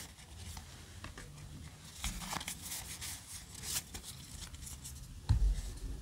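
Yu-Gi-Oh! trading cards being handled: short papery slides and flicks as cards are moved through a stack by hand, then a dull knock near the end.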